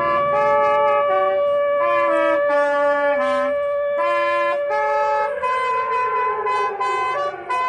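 Instrumental music: a melody of short notes over one long held note, then from about five seconds in a slow downward slide in pitch.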